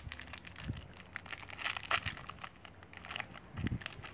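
Plastic wrapper of a cereal bar crinkling and tearing as it is opened by hand: a run of sharp crackles, thickest just before halfway.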